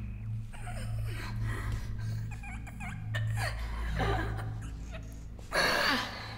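Soft breathy vocal sounds over a low steady hum, with a loud rush of breath about five and a half seconds in.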